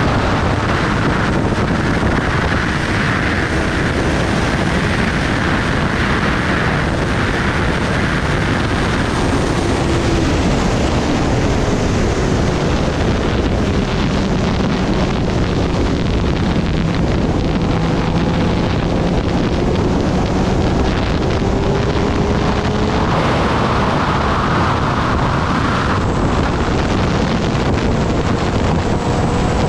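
Heavy wind rush over the rider at high speed on a Kawasaki Ninja ZX-10R, with the bike's inline-four engine running under it. The engine's pitch falls slowly about a third of the way in as the bike eases from about 200 km/h toward 160 km/h, then holds.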